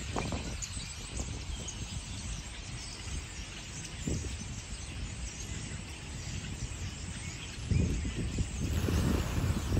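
Large flock of European starlings on the ground, a dense, continuous chatter of many overlapping calls. Low rumbling gusts come in briefly about four seconds in and again near the end.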